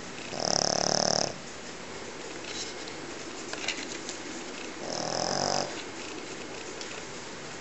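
A Pekingese dog snoring loudly in its sleep: two long snores about four seconds apart, each lasting close to a second. The snoring is typical of this flat-faced breed.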